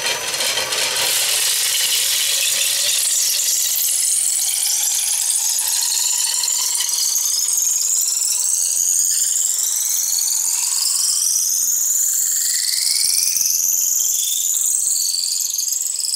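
A Veritas 3/8-inch dowel maker shaving a square chinaberry blank as it spins on a wood lathe, with a loud, high-pitched squeal. Several whistling tones climb steadily in pitch as the cut advances along the blank.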